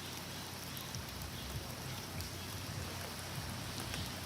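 Steady rain falling, an even hiss with individual drops heard now and then.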